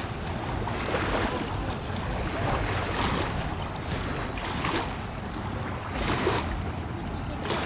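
Wind buffeting the microphone over moving river water, with water lapping in soft swells and a low steady hum underneath.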